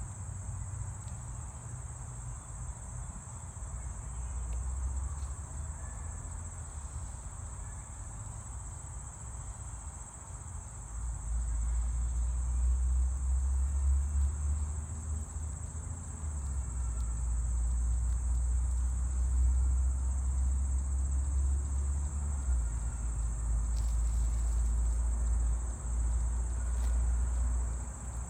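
A steady, high-pitched chorus of insects, with a low rumble underneath that grows louder about eleven seconds in.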